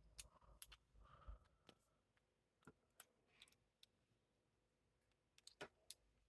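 Faint, irregular clicks and small scrapes of a lock pick and tension tool working the pins of a clear practice lock, about a dozen scattered ticks in all.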